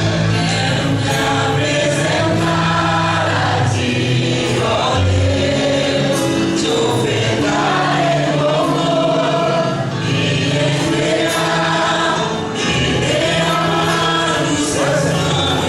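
Gospel worship song: a choir singing over a band, with a steady bass line underneath.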